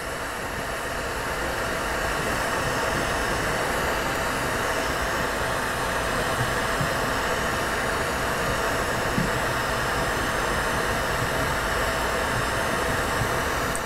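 Lampworking bench torch burning a bushy reducing flame with a steady hiss as glass rods are heated in it; it gets a little louder over the first couple of seconds.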